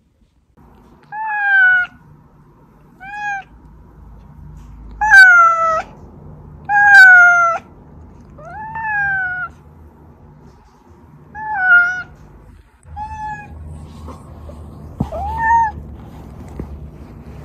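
Domestic cat meowing over and over, eight meows one to three seconds apart, some short and some drawn out with a rise and fall in pitch. A couple of sharp clicks and light rustling come near the end.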